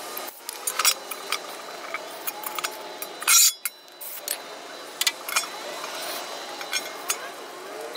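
A short hiss from an aerosol can of brake cleaner sprayed onto a transmission pan, about a third of the way in. Around it are scattered light clicks and clinks from the can and pan being handled and wiped with a shop towel.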